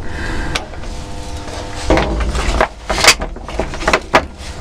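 Electric windscreen wiper motor on an MTZ-80 tractor cab running the wipers over a wet windscreen, newly wired and working: a steady motor hum with several sharp knocks.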